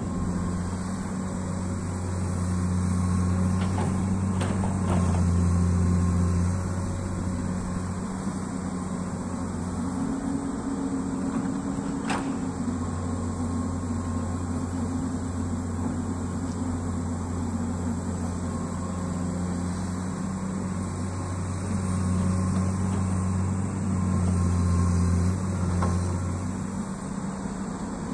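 Excavator's diesel engine running steadily while digging, its pitch and loudness rising and falling with the hydraulic load, swelling loudest a few seconds in and again near the end.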